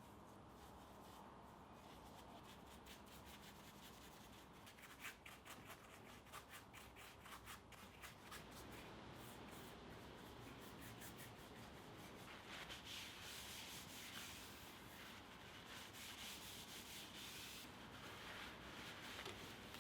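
Faint hand rubbing and scrubbing on the surface of a cast-steel Kohlswa anvil as it is cleaned up. A run of quick short strokes comes about five seconds in, and a steadier scrubbing follows later.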